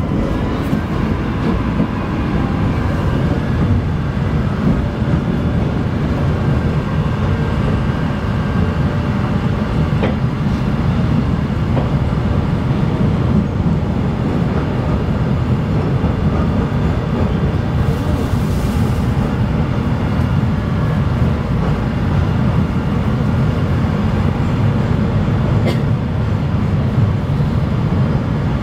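Chicago 'L' train car in motion, heard from inside: a steady, loud rumble of the wheels on the rails and the car body. There is a sharp click about ten seconds in and another near the end.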